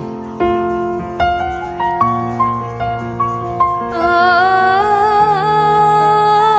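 Background music: slow piano notes, then a held, wavering melody line that enters about four seconds in.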